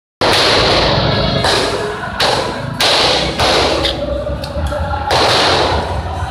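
A rapid series of loud bangs, about six in six seconds, each sudden and followed by a long echoing tail.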